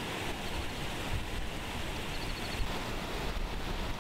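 Wind buffeting the microphone over a steady rush of water.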